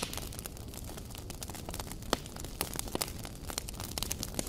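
Wood and ember fire under a flatbread griddle crackling, with irregular sharp pops over a low rustle of burning; one pop about two seconds in is the loudest.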